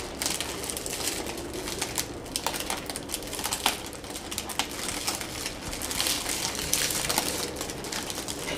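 Clear plastic gift bag crinkling and rustling in quick, irregular crackles as hands gather and tie its neck.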